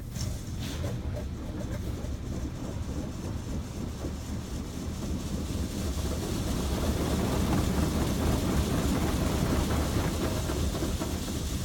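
An automatic car wash working over the car, heard from inside the cabin: a steady rushing and rumbling of water and washing machinery on the body, growing louder about six seconds in.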